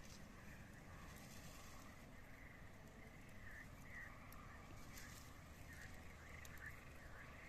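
Near silence: faint outdoor ambience with soft, repeated chirping calls.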